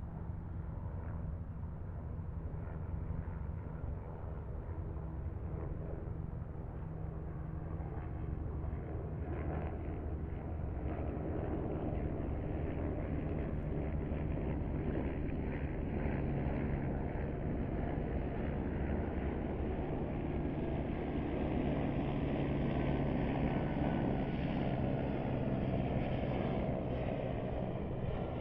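Car driving at highway speed: a steady engine hum under continuous road and tyre noise, growing somewhat louder about a third of the way in.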